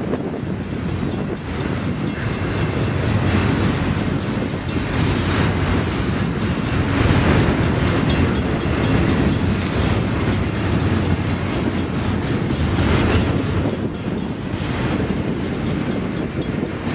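A train running along the track: a steady, loud rumble with the clatter of its wheels.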